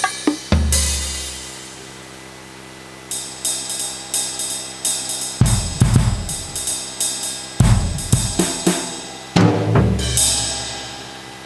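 Carlsbro Okto A electronic percussion pad played by hand, sounding drum-kit samples: a few quick drum hits and a cymbal crash with a low boom ringing out, then runs of drum strikes, and another crash with a low boom near the end.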